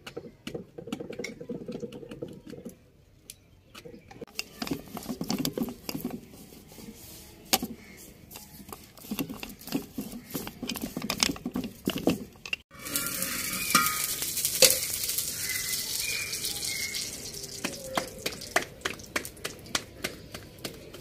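Kitchen utensils clattering and scraping, then from about two-thirds of the way in a stuffed mooli paratha frying in oil in a hot pan: a steady sizzle with sharp taps of the spatula over it.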